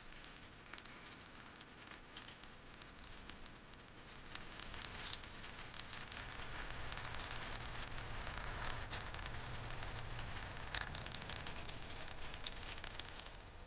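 Water trickling and splashing from a small paludarium waterfall: a steady patter of fine drips and splashes that swells louder midway through, then stops abruptly.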